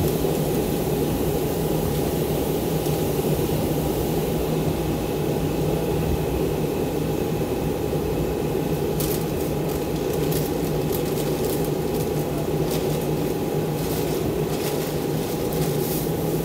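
Inside an R142 subway car: the steady hum of the car's running gear and ventilation as the train runs into a station and slows to a stop, with a scatter of light clicks and ticks in the second half.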